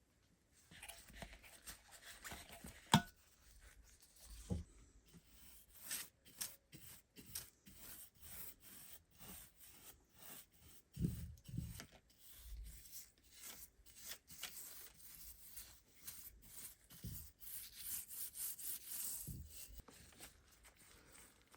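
Hand polishing of a steel axe head: many short, irregular rubbing and scraping strokes with a few soft knocks, fairly faint.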